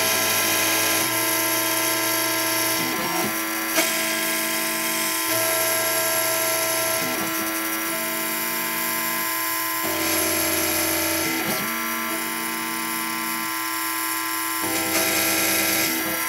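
Gravograph M20 rotary engraving machine cutting stainless steel: the spindle and cutter run with a steady high whine while the axis motors hum underneath, changing pitch every second or two as the cutter moves from stroke to stroke. A sharp click comes about four seconds in.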